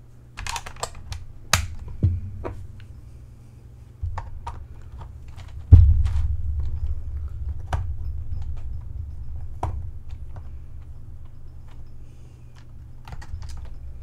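Scattered small plastic clicks and taps from hands pressing and prying at a dismantled laptop's plastic chassis, with one much louder knock on the desk about six seconds in.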